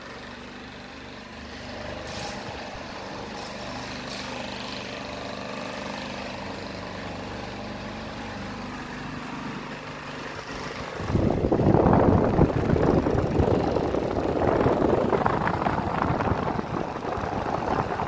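Cadence Ventilar Eros Supreme table fan running at top speed: a steady motor hum that builds as the blades spin up. About eleven seconds in, a much louder rushing noise takes over as the fan's airflow blows across the microphone.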